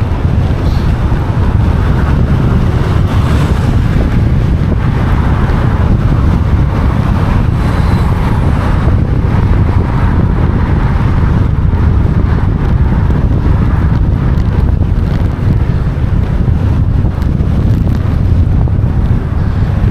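Strong wind buffeting the microphone: a loud, steady rumble with gusty rushing over it, no let-up.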